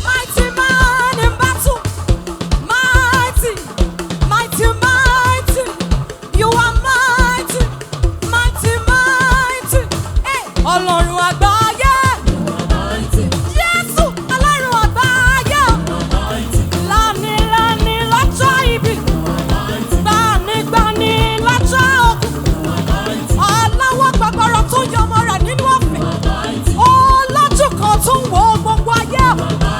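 Live gospel praise music with a drum kit and percussion keeping a steady dance beat under a wavering melody line, with some singing.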